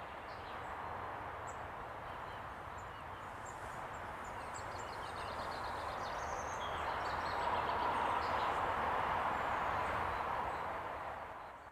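Woodland ambience: a steady rushing background noise that swells through the middle and fades near the end, with faint calls of small birds over it.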